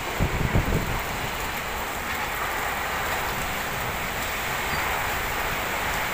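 Heavy rain pouring down in a windy thunderstorm: a steady hiss of rain, with gusts of wind buffeting the microphone in the first second.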